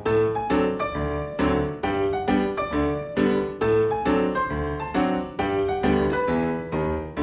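Background piano music: a steady run of piano notes and chords over a bass line.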